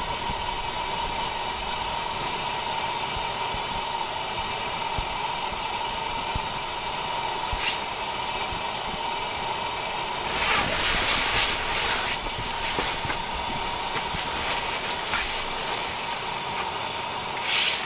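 Strong gusty wind blowing steadily, with louder gusts about ten seconds in and again near the end.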